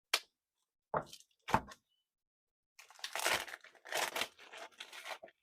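Packaging of new LED headlight bulbs being opened: a few sharp clicks and knocks, then a couple of seconds of tearing and crinkling.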